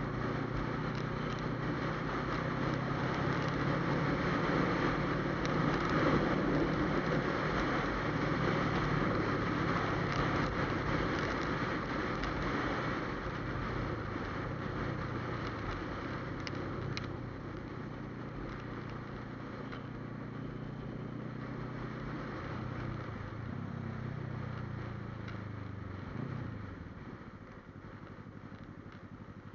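Motorcycle running at road speed, its engine note steady under wind and road noise. Over the last few seconds it slows: the engine note falls and grows quieter.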